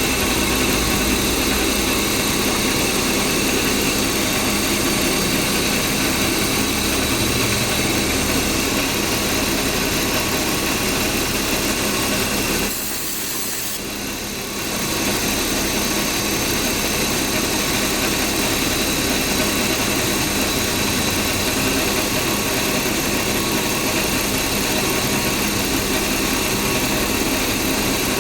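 BMW E36 328i's 2.8-litre straight-six engine idling steadily. About halfway through, the sound drops in level for about two seconds, then returns.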